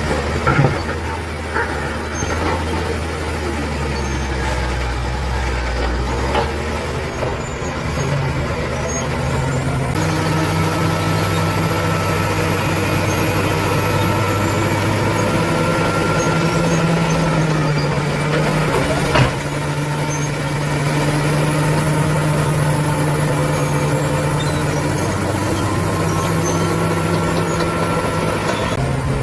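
Diesel engine of heavy earthmoving machinery running steadily, its engine speed stepping up about ten seconds in as it works. A few sharp knocks, the loudest about nineteen seconds in.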